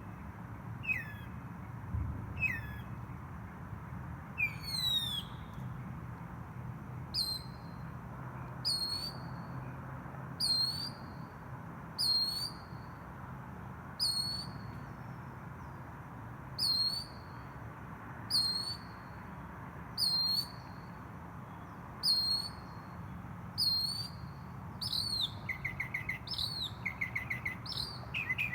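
A bird singing: a short, sharp, hooked call repeated about every second and a half, changing to a fast trill of quick notes near the end, over a low steady background hum.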